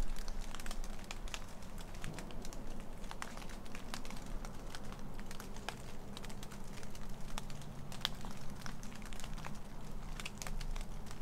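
Quiet woodland ambience: a low steady hum with scattered soft clicks and crackles.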